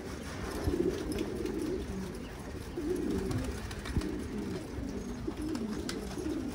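Many domestic pigeons cooing at once, a low, continuous chorus of overlapping coos.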